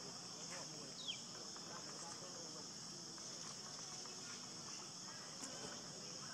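Steady high-pitched insect chorus, with a short falling chirp about a second in.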